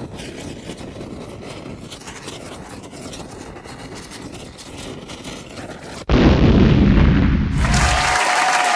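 Lit fuse fizzing and crackling for about six seconds, then a sudden loud explosion boom. Applause starts near the end.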